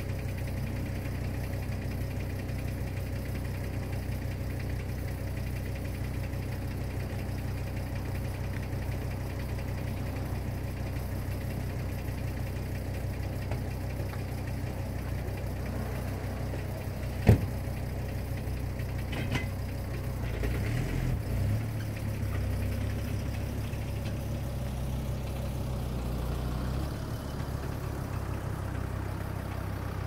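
An engine idling steadily with a low hum, broken once a little past halfway by a single sharp click.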